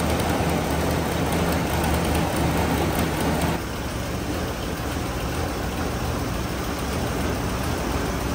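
Squarebody Chevy truck's small-block V8 running at a steady idle as the truck creeps out of the shop. About three and a half seconds in the sound drops slightly and its pitch shifts.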